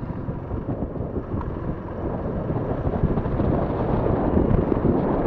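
A motorcycle riding through town at low speed, with its engine running and wind buffeting the microphone. The rumble grows steadily louder as the bike speeds up.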